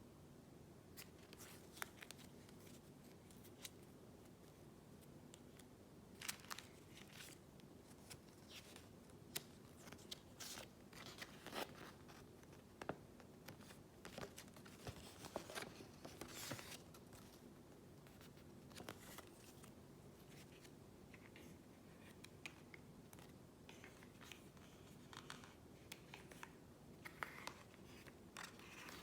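Faint handling noises of a card game being unboxed: scattered light clicks, taps and crinkly rustles of packaging, box and cards, coming in irregular clusters.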